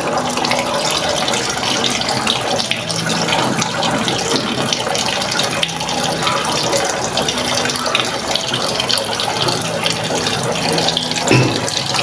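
Water pouring from the inlet of a Singer fully automatic top-load washing machine into the drum, splashing steadily into the wash water over the clothes as the machine fills. A faint low hum comes and goes under the splashing.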